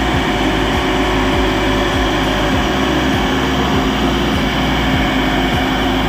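Massey Ferguson tractor's diesel engine running steadily under load as it pulls a potato digger through the soil, with low knocks repeating a couple of times a second.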